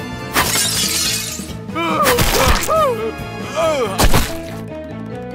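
Background music laid over cartoon sound effects. There is a shattering crash about half a second in, then a run of short tones that slide down in pitch, and one sharp hit about four seconds in.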